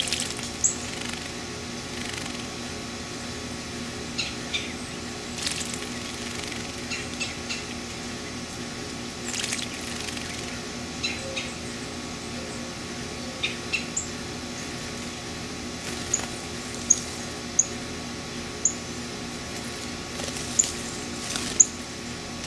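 Male painted bunting bathing in a shallow concrete birdbath: short bursts of wing-flicking splashes every few seconds, with brief high bird chips in between, more of them in the second half, over a steady low hum.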